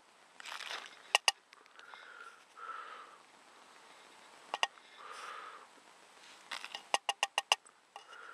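A carved wooden spoon scooping dry powder from a plastic tub and tapping against a steel camping mug. There are a couple of sharp clicks about a second in and one midway, then a quick run of about eight taps near the end. Between the taps come soft breaths through the nose.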